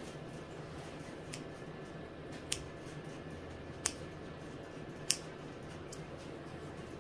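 Small green-handled grooming scissors snipping a rabbit's fur: three sharp snips a little over a second apart, with a fainter one before them.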